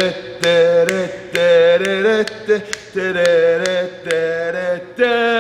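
A man singing a string of long held notes, each about half a second to a second with short breaks between them, with sharp ticks about twice a second.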